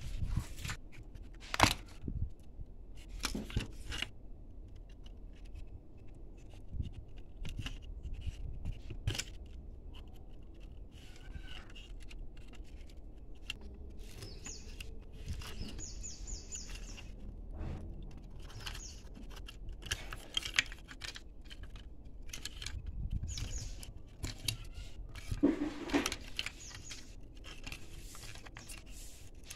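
Handling noises from taking apart a plastic Bluetooth speaker: scattered clicks, knocks and rubbing of the plastic housing, its parts and wires, with a few sharper knocks about two seconds in and again near the end.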